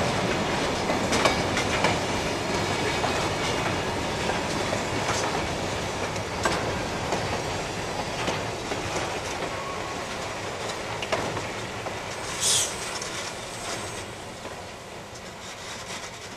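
A freight train's hopper cars rolling past at close range, wheels clacking over the rail joints with a steady rumble. The sound fades gradually as the last cars and the caboose go by, and a brief high hiss comes about twelve seconds in.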